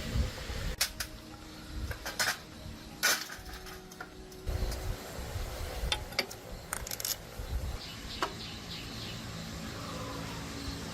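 Metal tools and small parts clinking and knocking against each other, several separate strikes with gaps between.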